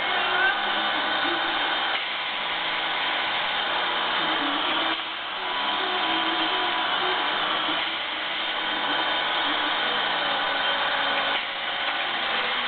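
Quilt-packing press running, a steady motor noise with a hiss, dipping slightly about five seconds in and again near the end.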